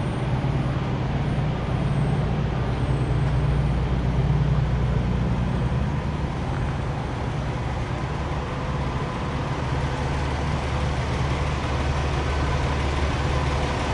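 Steady low hum of parked semi-trucks' diesel engines running. A deeper hum comes in about halfway through.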